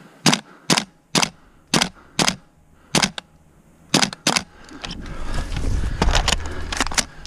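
Airsoft guns firing single shots: about eight sharp cracks at uneven gaps of roughly half a second, then a low rumble from about two-thirds of the way in with three more cracks over it.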